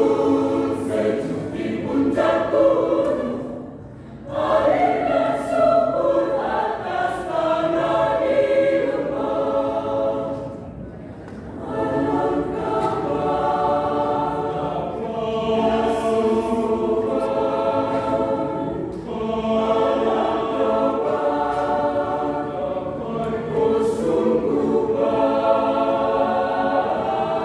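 Choir singing in long, sustained phrases, with brief breaks between phrases about 4 and 11 seconds in.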